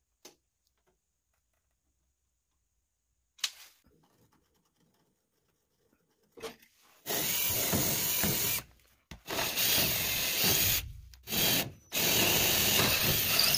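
Cordless drill boring a bolt hole through a jon boat's aluminum transom, with the trigger run in several bursts of one to two seconds each, starting about halfway in. Before that it is near quiet apart from a couple of light clicks.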